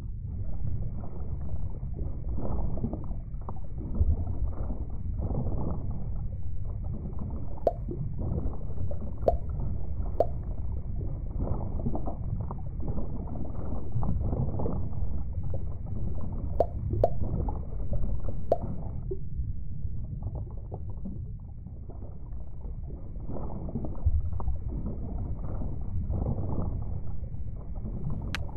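Muffled, low gurgling and bubbling water, as heard underwater, with a few faint clicks scattered through it.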